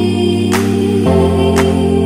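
Background music: sustained chords with a soft beat about once a second, the chord changing about a second in.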